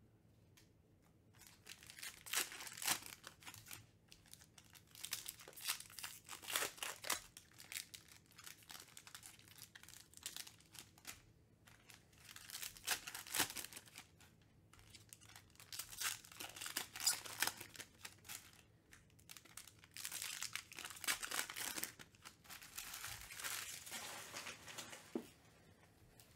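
Foil trading-card pack wrappers being torn open and crinkled by hand, in bursts of rustling every few seconds.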